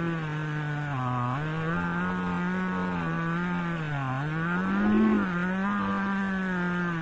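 Two-stroke chainsaw running at high revs while ripping lengthwise through a log in a homemade chainsaw-mill frame. Its engine pitch sags about a second in and again around four seconds as the chain loads up in the cut, then climbs and gets louder near five seconds.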